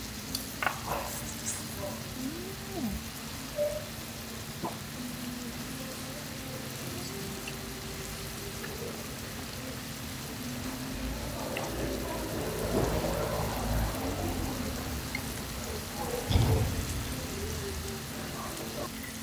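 Pen shell clams, shrimp, meat and vegetables sizzling steadily on a hot tabletop griddle, with a few light clicks of chopsticks and a brief thump about three-quarters of the way through.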